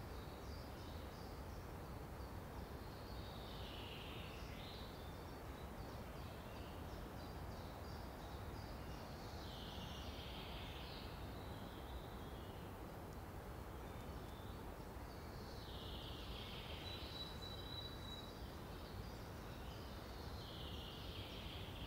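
A songbird singing a short phrase about every five or six seconds, each phrase lasting about a second, over a steady low outdoor background rumble.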